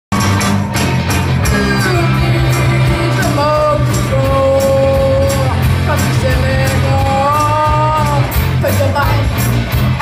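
Live rock band playing: a singer holding long notes over electric guitars, bass and a steady drum beat.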